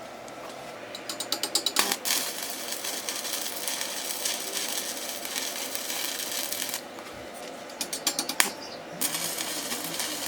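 Aerosol spray-paint can shaken, its mixing ball rattling in quick clicks about ten a second, then spraying in a steady hiss for several seconds. Then it is shaken briefly again and the spraying resumes near the end.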